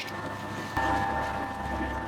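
Electric dough mixer running with a steady hum. About three-quarters of a second in, it gets louder and deeper.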